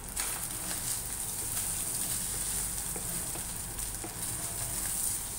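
Corned beef sizzling as it fries in a non-stick pan, stirred with a spatula that scrapes and taps the pan now and then; the meat is being fried dry until crisp.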